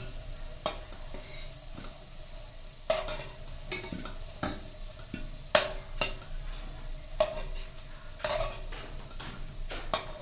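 A spatula scraping and knocking in a kadai as fried potatoes are lifted out of hot oil, with a low sizzle of frying underneath. The strokes come irregularly, about a dozen of them.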